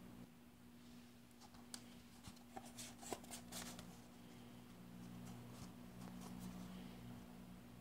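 Faint crinkling and clicking of a folded paper pyramid being handled, mostly between about two and four seconds in, over a low steady hum.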